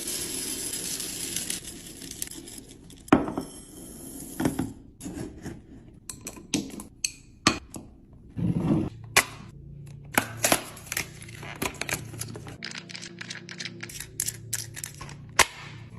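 Packaging rustling and tearing for about the first three seconds, then a long run of sharp clicks and knocks as food items and plastic containers are handled and set down while a fridge is restocked.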